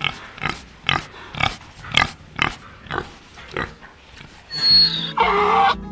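Wild boar grunting repeatedly in short, even grunts about two a second, for the first three and a half seconds. Near the end a louder, drawn-out sound takes over.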